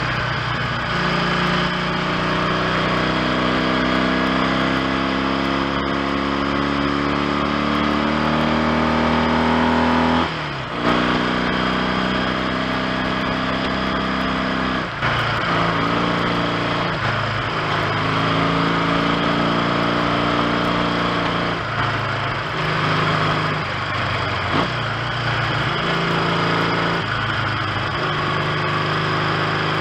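1970 Triumph T100C parallel-twin motorcycle engine under way, pitch rising steadily as it pulls. There is a brief drop about ten seconds in and again about fifteen seconds in, like gear changes, then the revs rise and fall repeatedly through the rest.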